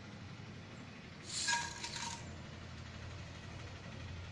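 Dried red chillies, dal and mustard seeds tipped from a steel plate into a frying pan: a short clatter of seeds with the steel plate ringing, about a second in, over a steady low hum.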